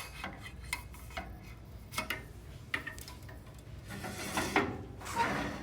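Scattered metallic clicks and clinks, with a longer scraping rub near the end, as the cutter heads on a duct board cutting machine are slid into place and set to measurements.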